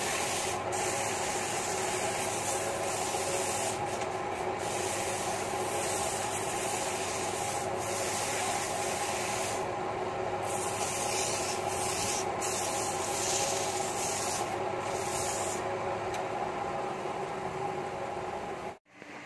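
Sandpaper held by hand against a large wooden blank spinning on a wood lathe: a hissing rub that swells and fades with each pass, over the lathe's steady hum. The sanding fades out in the last few seconds, leaving the lathe running, and the sound cuts off suddenly near the end.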